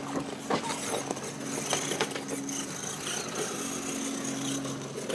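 Axial SCX10 scale RC crawler driving over sandy ground, its electric motor and gear drivetrain giving a steady whine, with scattered clicks and ticks.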